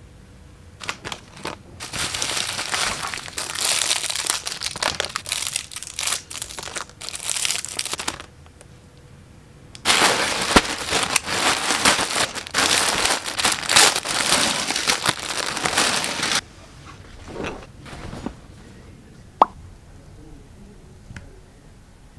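Plastic packaging and bubble wrap crinkling and tearing as parcels are unwrapped by hand, in two long stretches of rustling, the second louder, then quieter handling.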